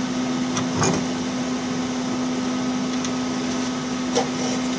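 Steady mechanical hum of shop equipment with a constant low drone, and a few light clinks of metal parts being handled about a second in and again near four seconds.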